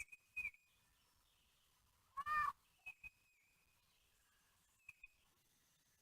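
Faint bird chirps outdoors: a few short high chirps scattered through, with one longer, fuller call a little past two seconds in.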